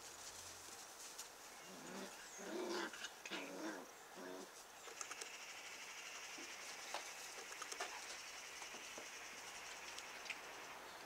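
White Swiss Shepherd puppies giving short play growls and whines while they wrestle, in a cluster from about two to four and a half seconds in, with light scuffling on the grass.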